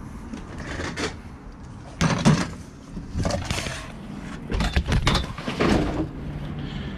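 Knocks and scrapes of a Stihl BR 500 backpack leaf blower being lifted and set down on a van's cargo floor among other tools; the loudest knock comes about two seconds in, with a cluster of further knocks later.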